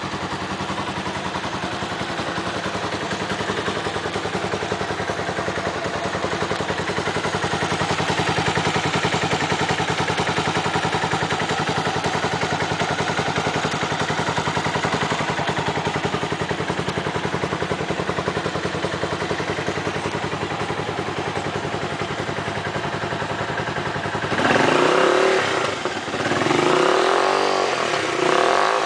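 Dafra Kansas 150 motorcycle's single-cylinder engine idling steadily, then revved three times in quick succession near the end, the pitch rising and falling with each blip of the throttle.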